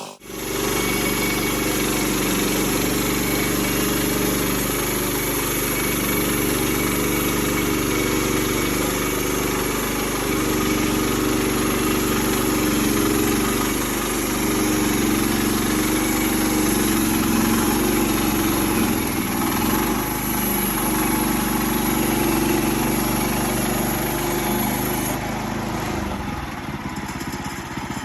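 An engine running steadily with a thin high whine over it. Near the end the whine stops and the engine note changes.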